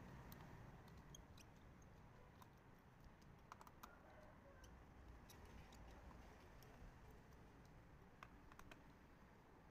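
Faint, irregular small clicks and ticks of a precision screwdriver working screws out of a plastic calculator back case, over a low background hum.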